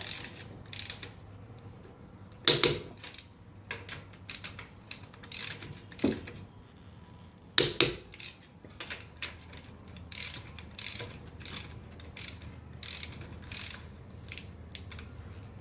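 Torque wrench set to 85 foot-pounds ratcheting on car lug nuts: irregular runs of small pawl clicks, with two louder sharp clicks.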